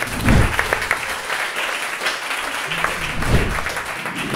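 Live audience applauding, steady and dense with many hands clapping.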